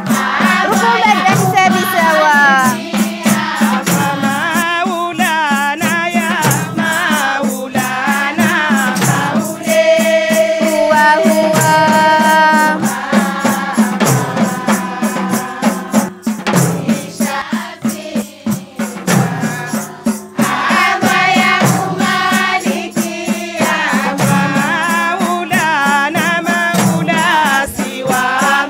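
A choir of women and girls singing a chant in unison, with frame drums and jingling tambourines beating a steady rhythm throughout.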